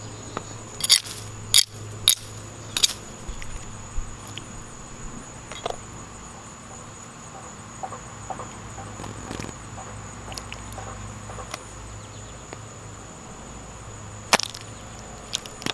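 A green Nike Mercurial Superfly soccer cleat stamps down on a red gelatin mold on concrete near the end, one sharp smack that is the loudest sound here. Several sharp clicks and pops come in the first few seconds, with small scattered ticks in between, over a faint steady high tone.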